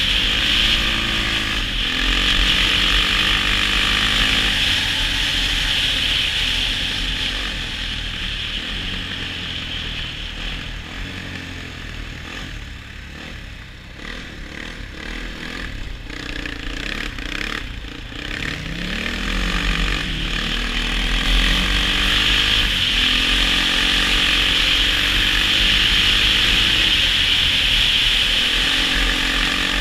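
Quad (ATV) engine running under throttle as it is ridden. It eases off and quietens through the middle, then revs up again about two-thirds of the way in and holds at speed.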